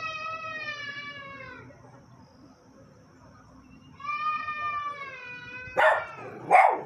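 Dog whining in two long, high calls that drop in pitch at the end, then two short, sharp barks near the end.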